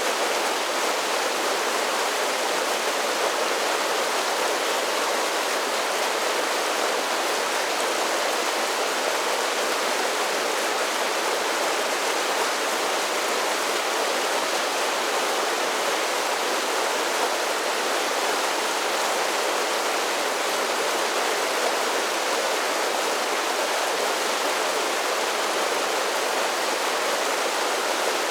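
A mountain creek running over a series of small cascading falls: a steady, even rush of water.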